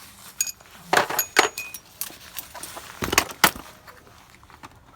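Metal sockets clinking and knocking as they are put back into a socket set, about five sharp clacks, some with a short metallic ring.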